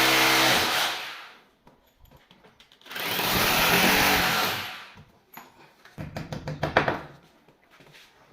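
An electric power tool's motor running in two bursts: one already going that winds down about a second in, and a second of about two seconds in the middle. A run of knocks and taps follows near the end.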